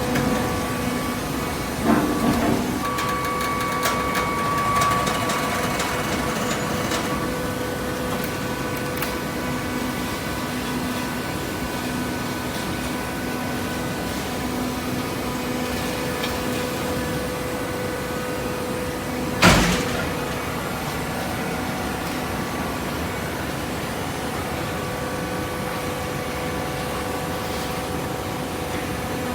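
Hydraulic baling press running: the steady hum of its motor and pump, with a few clanks about two seconds in and one loud bang about two-thirds of the way through.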